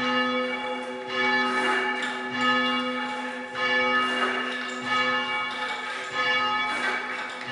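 Church tower bells rung in change ringing: a steady run of strikes about every half second to a second, each bell's ring overlapping the next.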